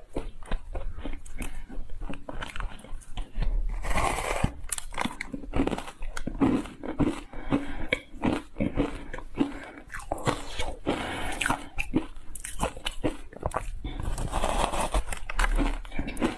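Ice coated in matcha tea powder being bitten and chewed close up: a continuous run of sharp crunches and cracks, with a few denser, louder bursts of crunching.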